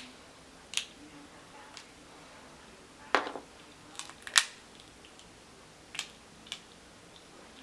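Steamed crab leg shells cracking and snapping as they are broken open: about six sharp cracks, the loudest about three to four and a half seconds in.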